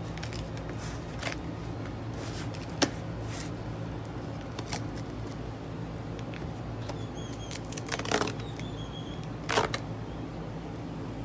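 Scattered clicks and light rustles of a box and its packaging being opened and handled, with two louder handling sounds near the end. Under them runs the steady hum of an air-conditioning unit.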